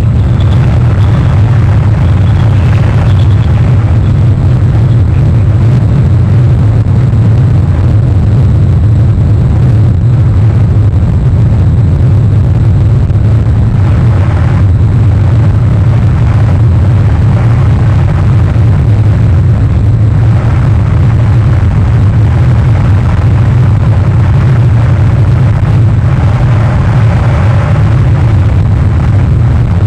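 Strong wind buffeting an outdoor camera microphone: a loud, steady low rumble with hiss above it, swelling a little in gusts.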